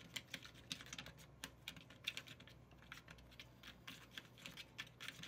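Faint, irregular clicking and scraping of a small plastic spoon against a plastic candy tray while stirring gummy-candy powder into water, several light clicks a second.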